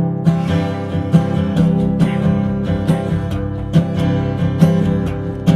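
Acoustic guitar strumming chords at a steady beat in a song's instrumental break between sung verses.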